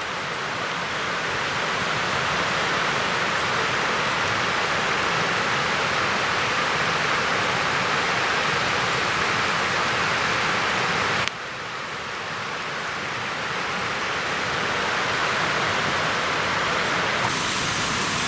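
Steady rushing of running water with no breaks or rhythm. It drops suddenly about eleven seconds in, then builds back up.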